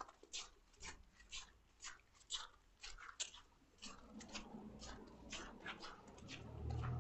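Footsteps of a person walking at a steady pace, about two steps a second, each a short crisp scuff. A vehicle's low rumble builds up under them and grows louder near the end.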